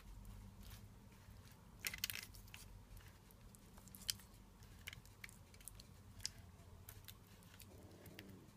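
Faint wet, sticky dabbing and smearing of a basting brush working thick barbecue sauce over baked chicken pieces, with scattered small ticks, a short cluster of them about two seconds in.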